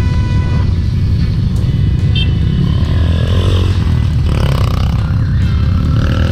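Trail motorcycle engine running, mixed with background music.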